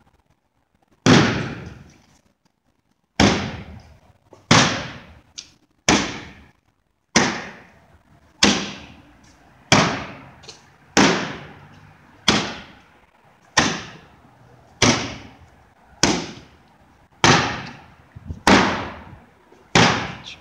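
Bags swung down and slammed hard onto pavement, about fifteen sharp cracking impacts, one every second and a quarter, each echoing on briefly, scattering white fragments.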